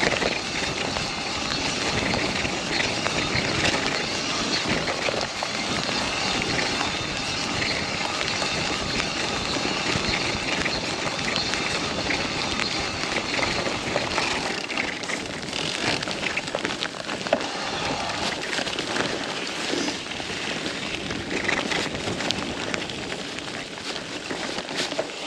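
Mountain bike riding down a wet, muddy trail: a steady rush of tyre and wind noise with scattered clicks and rattles.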